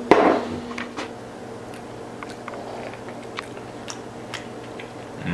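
A person chewing a mouthful of food, with scattered light clicks of a fork on a plate. A short rush of sound comes right at the start.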